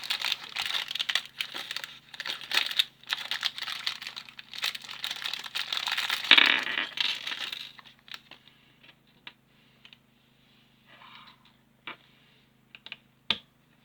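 Plastic packaging crinkling and rustling as it is handled and opened, stopping about eight seconds in; then a few scattered small clicks of plastic pieces, one sharper than the rest near the end.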